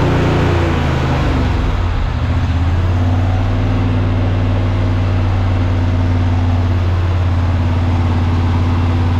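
An engine running loudly and steadily, slowing to a lower, even speed within the first couple of seconds.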